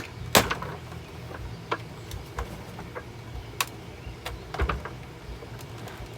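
Clicks and knocks from the plastic housing of an old bagged Hoover upright vacuum as someone works at it, trying to get a part off. The sharpest knock comes about half a second in, with scattered smaller clicks after it over a low steady hum.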